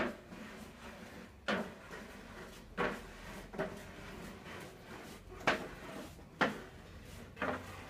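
A series of about seven sharp knocks, spaced unevenly about a second apart, each fading quickly.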